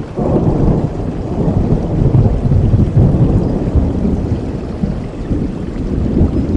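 A long, rolling rumble of thunder over steady rain, starting at once, strongest about two to three seconds in and slowly fading.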